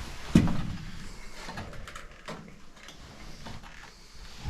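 A single sharp knock about half a second in, followed by scattered light clicks and scuffs.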